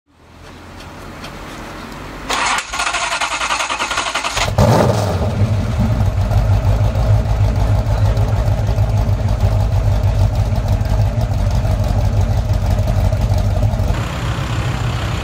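Ford GT40's V8 being started: the starter cranks for about two seconds, the engine catches with a loud burst about four and a half seconds in, and it settles into a steady, lumpy running.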